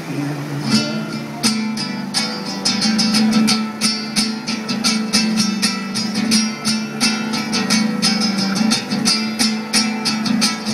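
Acoustic guitar strummed in a quick, driving rhythm, with no singing. After a couple of scattered strokes it settles into steady fast strumming about two seconds in.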